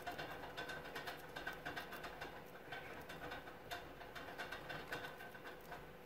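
Pet mice nibbling and chewing food at close range: quick, irregular small clicks and crunches, several a second, fading a little near the end.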